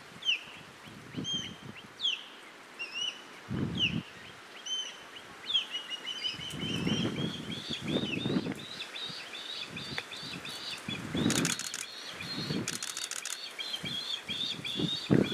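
Osprey fledgling begging: repeated high, thin chirps, at first spaced, then about five seconds in quickening into a fast, near-continuous run of chirps. Intermittent low thumps and rumbles come and go beneath the calls.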